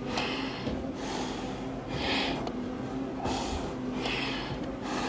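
Heavy breathing inside a firefighter's SCBA face mask: four hissing breaths, roughly one every second and a half, from the exertion of a long stair climb.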